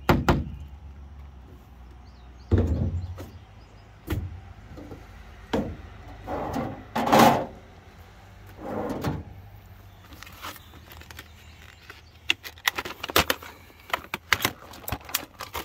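Tools being handled on a service truck's deck: a few separate knocks and thumps, then a run of quick crackling clicks near the end as a screwdriver set in its plastic blister pack is picked up.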